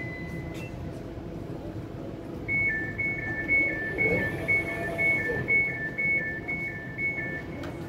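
Elizabeth Line Class 345 train standing at the platform with a low electrical hum. From about two and a half seconds in, a two-tone electronic beeping alternates high and low about twice a second for around five seconds.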